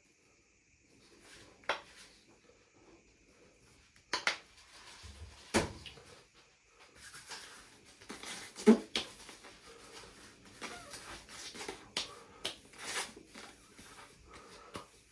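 Aftershave balm bottle being handled, with a few separate clicks and knocks. Then comes a longer stretch of hands rubbing and patting the balm onto a freshly shaved face, with one sharper knock partway through.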